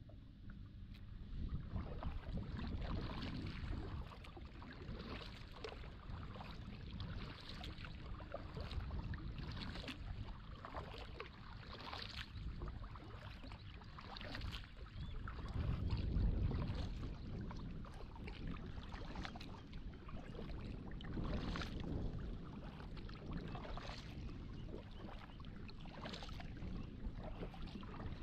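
Kayak paddle strokes splashing and dripping in the water, about one stroke a second, over a low rumble that swells about sixteen seconds in.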